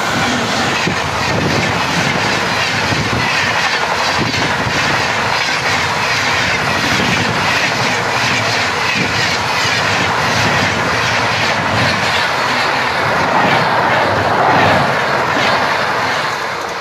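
Passenger train hauled by an Indian Railways electric locomotive passing close at speed: a steady loud rush of wheels on rail with rapid clattering over the rail joints, swelling a little near the end.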